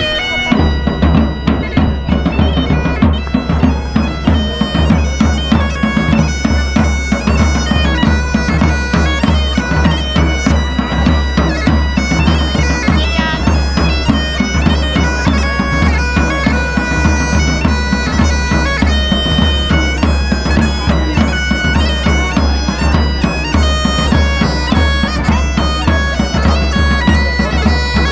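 Bagpipe playing a tune over its steady drones, with large drums beating a steady rhythm along with it.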